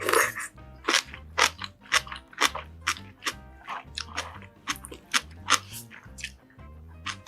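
Close-miked eating sounds: crisp crunching and chewing of food in quick bites, about two crunches a second, the loudest at the start. A low, steady beat of background music runs underneath.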